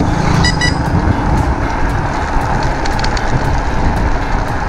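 Wind and road noise from riding a Raze Taurus XT electric scooter, a dense, unsteady rumble. About half a second in come two short, high horn beeps.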